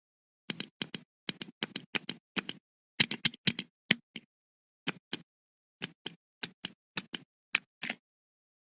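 Computer mouse clicks from a sound effects recording: a series of sharp clicks, many in quick press-and-release pairs, with dead silence between them. They start about half a second in and stop shortly before the end.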